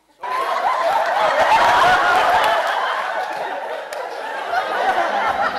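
A live audience laughing loudly, breaking out just after the start and keeping on, easing a little near the end.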